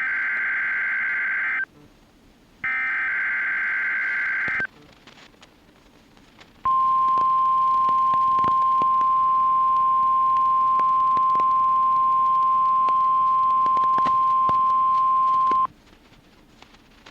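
NOAA Weather Radio test alert heard through a weather radio receiver. Two harsh bursts of SAME digital header data, each about two seconds long and about a second apart, are followed after a short pause by the 1050 Hz warning alarm tone: one steady high tone held for about nine seconds, then cut off, with a few faint clicks of static. This is the start of the weekly alarm test.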